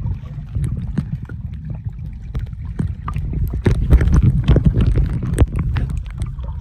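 Underwater sound from a phone held under the sea while snorkeling: a muffled, busy low rumble of moving water with many sharp clicks and crackles.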